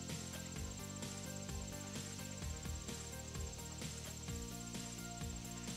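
Insects chirping in a fast, even high-pitched pulse, with soft background music of slow, held notes.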